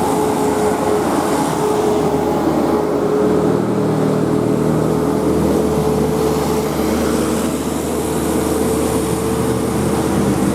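Bus engine running amid road noise, with a steady whine held throughout.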